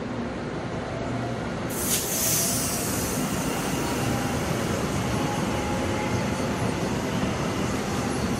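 Korail Line 1 electric commuter train passing close by, its steel wheels rolling along the rails with a steady rumble. A sharp hissing burst comes about two seconds in.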